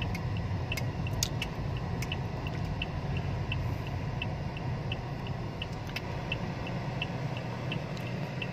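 A car's turn-signal indicator ticking steadily, about three ticks a second. Under it is the low steady hum of the engine and road noise inside the cabin, with a few light clicks.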